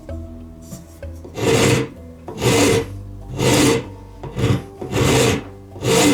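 Strokes of an abrasive worked by hand across the mallet, about one stroke a second. They start just over a second in and keep an even rhythm.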